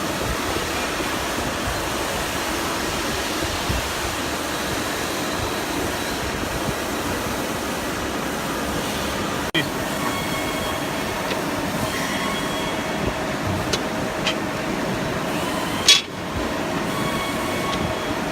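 Steady mechanical rumble of running machinery, with a sharp click about ten seconds in and another near the end. A faint steady whine joins in after the first click.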